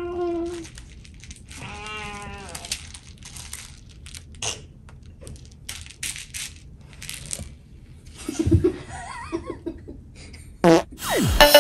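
A child's high voice making wordless, wavering calls, a short one at the start and a longer one about two seconds in, among small clicks and handling rustles. Near the end comes a sharp sound and a quick falling glide.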